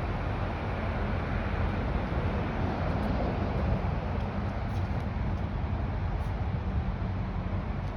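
Steady rumble and hiss of freeway traffic, with heavy trucks among it, with no single vehicle standing out.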